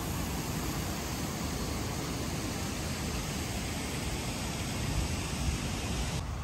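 Wind blowing over the microphone: a steady rushing hiss with an uneven low rumble of buffeting.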